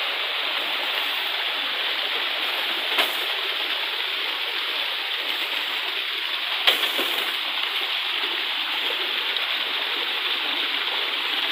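Steady rush of flowing stream water, with two sharp knocks, one about three seconds in and a louder one near seven seconds.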